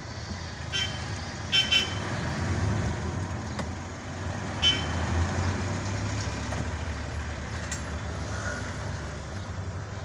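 Vehicle engine and road rumble heard from inside the cab while driving slowly in traffic, with a few short sharp sounds about a second in, a pair just before two seconds, and one more near the middle.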